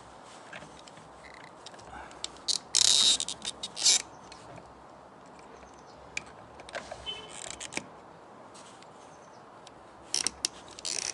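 Screwdrivers prying at the plastic clips of a car's fuel pump holder: scattered sharp clicks and scrapes of metal on plastic, with a loud scrape about three seconds in and a cluster of clicks near the end.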